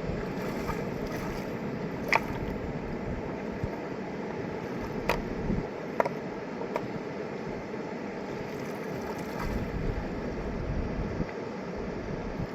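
Steady rushing of a fast mountain river, with a few sharp clicks over it about two, five and six seconds in.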